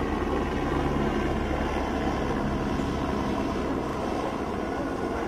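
A motor vehicle engine running steadily: a low hum with a few constant low tones over a noisy background.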